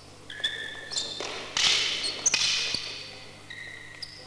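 Sneakers squeaking and thudding on a gym floor as two canne de combat fighters move and lunge, with sharp knocks and swishes of the canes. A louder burst of noise comes about a second and a half in.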